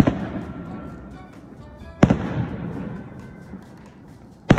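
Aerial firework shells bursting overhead: three sharp booms about two seconds apart, each followed by a rumbling echo that fades away.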